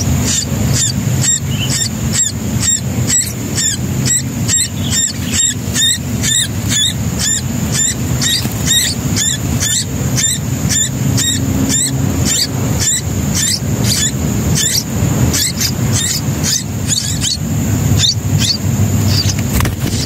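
Nestling songbirds begging in the nest: a steady run of short, high chirps, about two to three a second, over a constant high tone and a low rumble.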